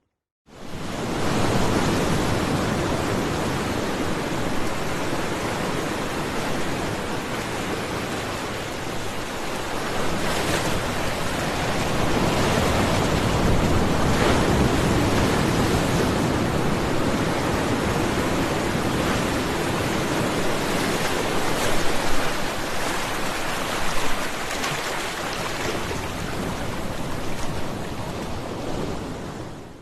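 Ocean surf: a continuous rushing wash of breaking waves that starts after a moment of silence, swells louder through the middle and eases off again before it cuts off.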